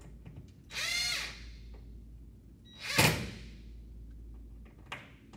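Cordless drill driving a screw into a steel wall cleat in short bursts: a brief motor whirr about a second in that speeds up and winds down, then a louder, sharper burst around three seconds in.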